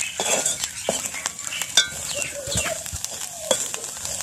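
Dried baby shrimp frying in coconut oil, stirred and scraped around a heavy pot with a spatula: repeated scraping strokes over a light sizzle.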